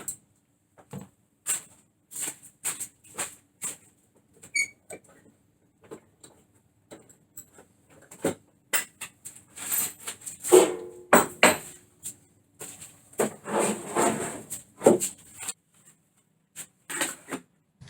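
Clamps being released and taken off a door, along with handling of the door: irregular clicks, knocks and clatter, busier and louder through the middle stretch.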